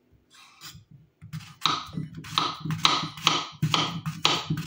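Kitchen knife slicing through peeled plantain and knocking on a wooden cutting board, a crisp chop about twice a second starting about a second in.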